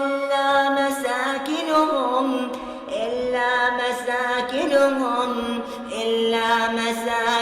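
Quran recitation: a male reciter chanting in a melodic style, holding long drawn-out vowels with ornamented turns in pitch, voice alone.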